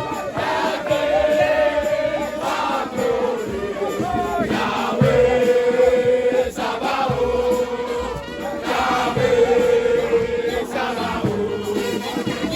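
A crowd of voices singing a chant-like song together, holding long notes.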